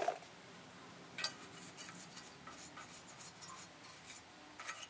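Faint scratching and light ticks of a brush-cap applicator spreading anti-seize on the metal pad-clip contact points of a rear brake caliper bracket. There is a sharper click at the start and another about a second in.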